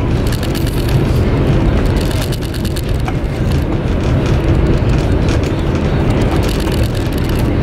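Steady low rumble of a high-speed train running, heard inside the carriage.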